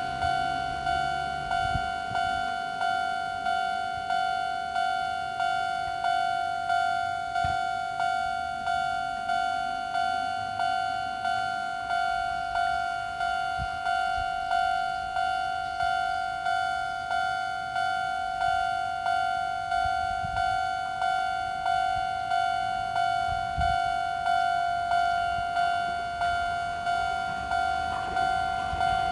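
Japanese level-crossing alarm sounding its old-type standard warning tone. A two-note ringing tone is struck again and again at a slow, even tempo, each stroke dying away before the next.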